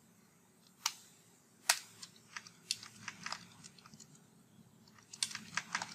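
Computer keyboard keystrokes: soft, scattered single clicks, then a quicker run of keys near the end.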